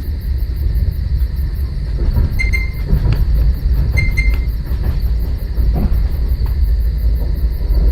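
DR1A diesel multiple unit running along the track: a heavy steady low rumble, with a few sharp knocks over the rails and two brief high-pitched tones a second and a half apart.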